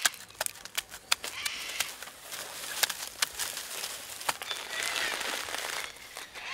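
Papery tree bark being pulled and torn from a trunk by hand: irregular sharp cracks and crinkling.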